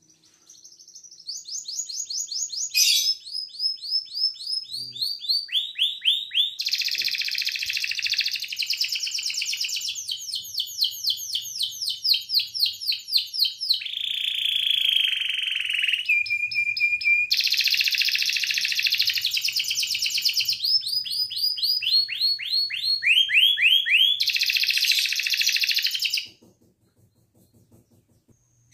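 Male domestic canary singing a long song of fast repeated trills and rolls, with a falling whistle and a held steady note midway. The song stops a couple of seconds before the end.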